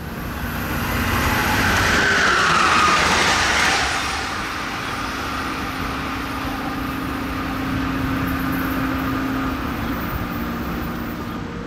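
A passenger train passing at speed: its rushing noise swells to a peak about three seconds in, with a pitch falling as it goes by, then continues as a steadier running noise with a low hum.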